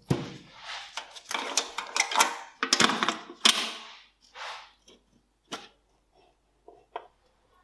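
A gloved hand rubbing and brushing across a rusty sheet-metal case lid in quick scraping strokes, dense with small clicks. This is followed by a few separate metal clicks and taps as the lid is lifted open.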